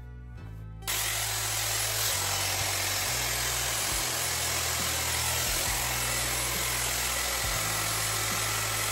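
Dyson Airwrap hair styler running: a steady rush of blown air with a thin high whine from its motor, starting abruptly about a second in.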